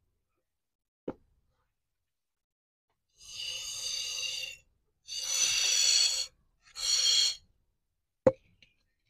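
Goat bleating three times in a row, hoarse and breathy, the calls about a second long each. There is a sharp knock about a second in and another near the end.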